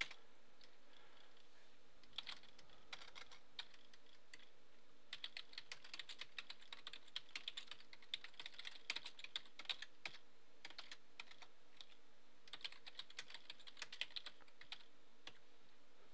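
Faint typing on a computer keyboard, in bursts of quick keystrokes with short pauses between them. The longest, densest run comes about five to ten seconds in.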